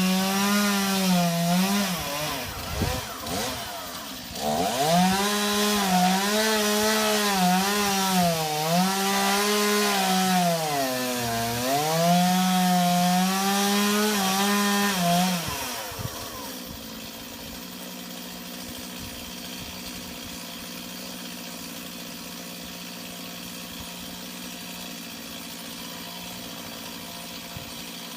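Chainsaw cutting into a palm trunk at full throttle, its engine speed sagging and recovering again and again under load. About sixteen seconds in it is let off and settles to a steady, quieter idle.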